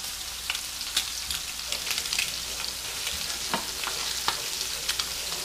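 Puffer fish pieces frying in hot oil in a stainless skillet: a steady sizzle with scattered sharp pops and crackles.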